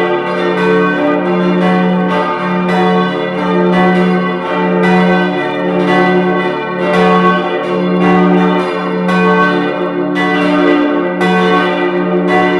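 Full peal of four church bells tuned d', f-sharp', a' and b', all ringing together. Strokes come one after another, about every half second, in an uneven overlapping sequence, and each tone rings on into the next.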